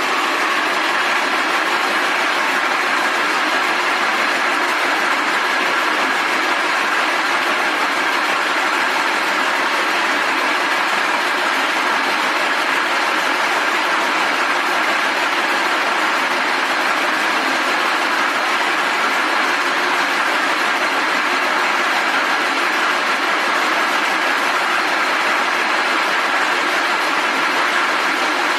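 Several rope braiding machines running at once: a loud, steady mechanical din with a few faint steady tones in it.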